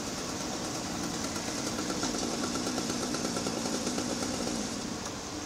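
Steady machinery running, an engine-like rumble that grows a little louder and rougher from about two seconds in until near the end.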